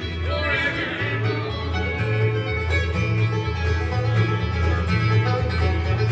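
Bluegrass band playing live, an instrumental passage of banjo, fiddle, mandolin, acoustic guitar and upright bass, with the banjo to the fore. The upright bass alternates between two low notes about twice a second.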